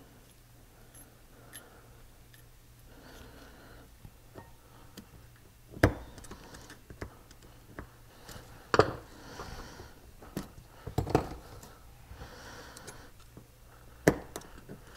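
Scattered sharp clicks and taps of small metal brake parts and snap ring pliers being handled while a Brembo front master cylinder is reassembled. Four louder clicks stand out among fainter ones.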